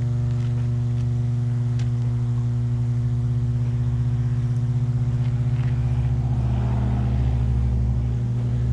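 Steady electrical hum of substation transformers and energized equipment: an even drone with a row of evenly spaced overtones. A low rumble swells up under it near the end.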